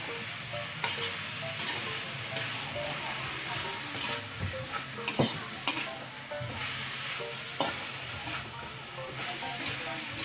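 Julienned jicama, carrots and green beans sizzling as they are stir-fried in an aluminium wok, with a spatula scraping and knocking against the pan every second or so; the sharpest knock comes about five seconds in.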